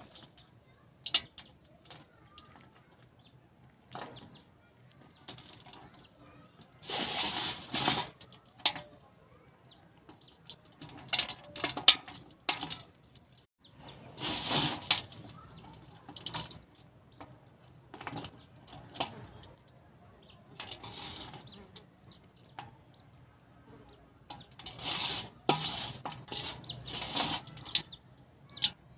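Dry red clay crumbling as it is squeezed in the hand and let fall back onto the pile: irregular bursts of crunching and rustling every few seconds, with small clicks of falling bits in between.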